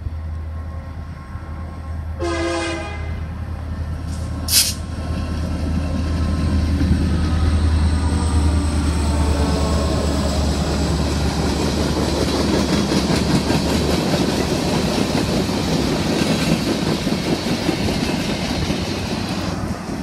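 Two EMD SD40-2 diesel locomotives approach and pass with a low engine rumble, which fades about fourteen seconds in. A short horn blast sounds about two seconds in, and a sharp bang follows a couple of seconds later. The freight cars then roll past in a steady rushing rumble of wheels on rail.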